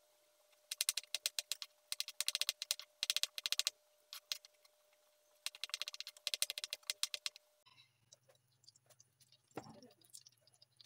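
Kitchen knife chopping carrots into thin strips on a wooden cutting board, in quick runs of sharp taps against the board. The chopping stops about seven and a half seconds in, leaving a low steady hum with one short knock.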